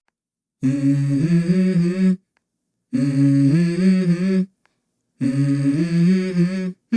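Background song intro: one voice humming a short stepwise melody in three phrases, with brief pauses between them.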